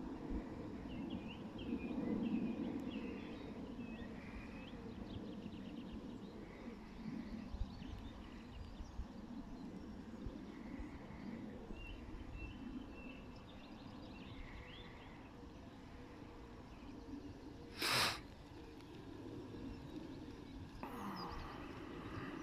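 Outdoor ambience: a low rumble of wind on the microphone with small birds chirping now and then, and one short, loud rush of noise about 18 seconds in.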